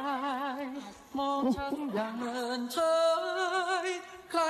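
Background song: a singer holding long, drawn-out notes with vibrato, with a short break about a second in.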